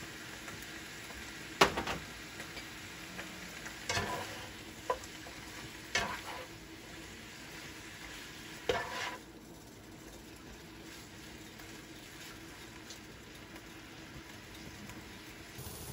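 Bok choy sizzling in a frying pan while it is stirred and tossed, with a handful of sharp clacks of the utensil against the pan. The loudest clack comes a little under two seconds in, and the sizzle goes on more quietly after about nine seconds.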